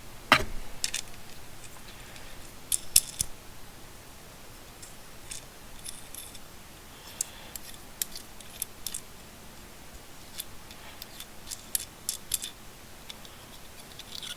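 Small camera swivel mounts being handled: scattered sharp clicks and light clinks at irregular moments, a few close together, with a little faint rustling between them.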